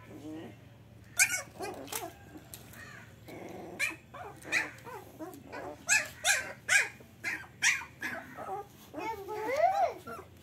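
Young puppies play-fighting, giving a rapid string of short, high-pitched yaps and yelps, with a longer rising-and-falling whine near the end.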